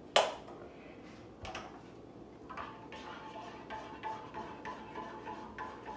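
A sharp knock just after the start, then from about halfway a spoon stirring in a mug of coffee, with quick light clinks against the side and a faint ring.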